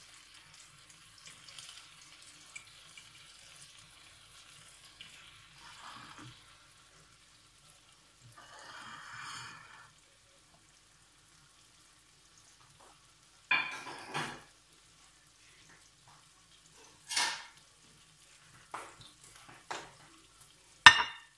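Egg-and-milk-soaked bread slices frying faintly in a grill pan, with a louder sizzle for about a second near the middle as another slice goes in. Several sharp clatters of kitchenware follow in the second half, the loudest just before the end.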